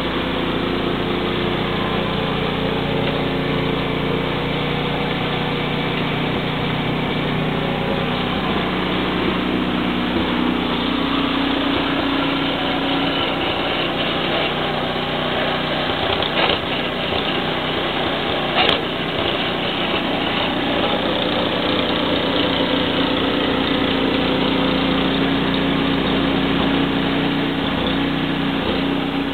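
Two-stage petrol snowblower engine running steadily under load while the machine is steered and driven forward, its pitch shifting slightly. Two short sharp knocks midway through.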